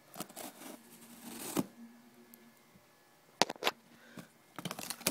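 Cardboard shipping box and its packing being opened and handled: scattered rustling with sharp clicks and knocks, the loudest knock about three and a half seconds in and a busier run of rustles near the end.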